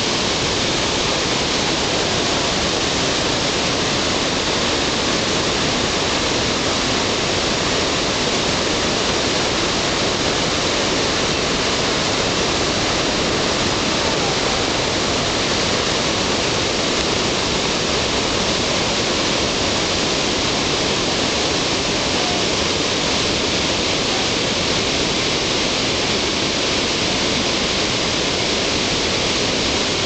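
The Rhine Falls, a large waterfall on the Rhine, making a steady, unchanging rush of water.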